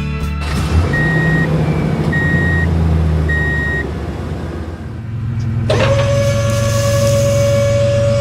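A vehicle's reversing alarm beeps three times, about a second apart, over a low engine rumble. A few seconds later a steady whining motor sound starts suddenly and holds.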